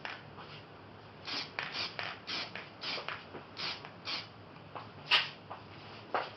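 A run of short scraping or rasping strokes by hand, about two to three a second, with one sharper, louder stroke about five seconds in.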